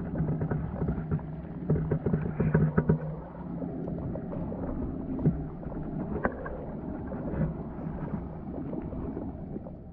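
Underwater sound picked up by an action camera submerged in a trout stream: a steady low rumble with a faint hum, and scattered clicks and knocks, bunched about two to three seconds in, with a sharp click a little past six seconds.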